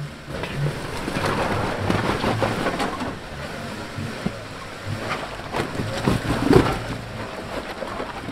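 Off-road vehicle engine running at low revs under a steady rushing noise, with scattered knocks and rattles, loudest about six seconds in.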